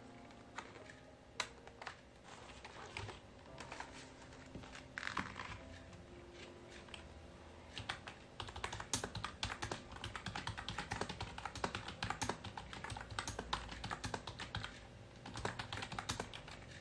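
Typing on a keyboard with round, typewriter-style keycaps: a few scattered clicks at first, then from about eight seconds in a fast, continuous run of key clicks, with a short pause near the end before it resumes.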